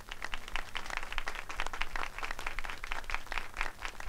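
Audience applauding, many hands clapping in a dense, irregular patter.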